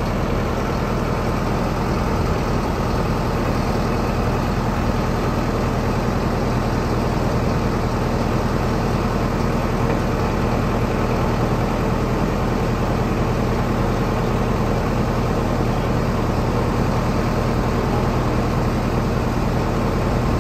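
Sonalika Tiger four-wheel-drive tractor's diesel engine idling steadily.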